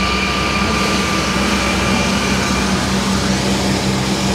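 Parking-lot tram rolling along on wet pavement, its tractor unit's engine running with a steady hum under continuous road noise. A thin high whine fades out about halfway through.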